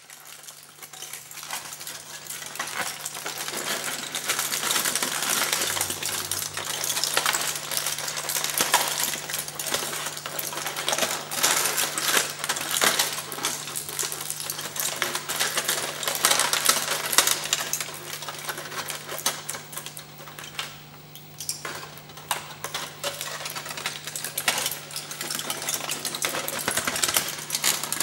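Aluminium foil being crumpled and squeezed by hand: a continuous, dense crinkling crackle of many sharp clicks. A steady low hum runs underneath.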